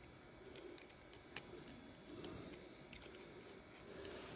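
Faint, scattered light clicks of a small screwdriver and steel carving-knife blade being handled while a tiny screw is backed out of the blade.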